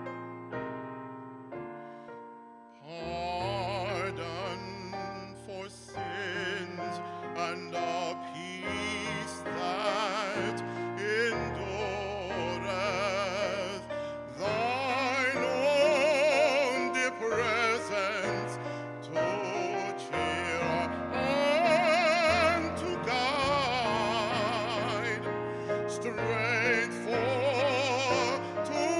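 A man singing a solo in a full voice with heavy vibrato, accompanied by piano chords played on a Korg keyboard. The piano plays alone for the first few seconds before the voice comes in.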